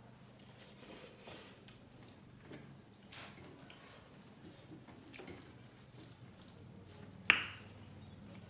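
Quiet eating sounds of two people eating rice by hand from metal plates: soft chewing, wet mouth smacks and squishing of rice, with one sharp click and a brief ring about seven seconds in.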